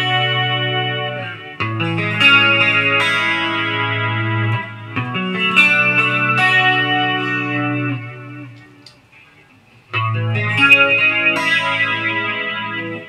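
Electric guitar playing ringing chord phrases through a Boss DD-20 digital delay in modulation mode, with the repeats blending into the notes. After a pause of about a second and a half past the middle, the playing resumes with an Electro-Harmonix Deluxe Electric Mistress flanger added to the delay.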